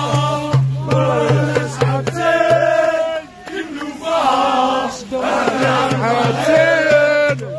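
Group of male football supporters chanting a song together over a steady low beat of about three pulses a second. The beat drops out for about three seconds midway while the singing goes on.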